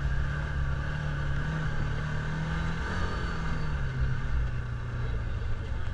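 Side-by-side UTV engine running at low speed, heard from the driver's seat. Its note dips a little just past halfway as the throttle eases off.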